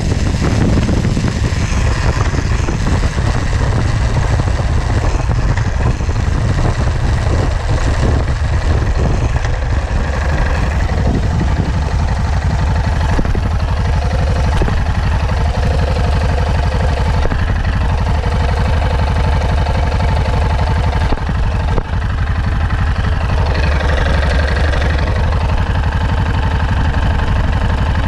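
Yamaha Ténéré 660 (XT660Z) single-cylinder engine running under way as it is shifted through the gears, with a knock from the gearbox at the gear changes. Heavy wind buffeting on the microphone.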